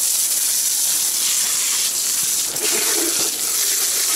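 Hot water running steadily from the tap, a constant rush of flowing water.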